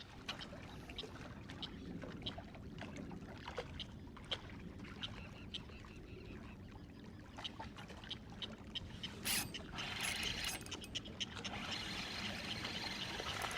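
Faint water and wind noise with scattered small clicks and taps. A brief louder rush comes about nine seconds in, and a steadier hiss fills the last couple of seconds.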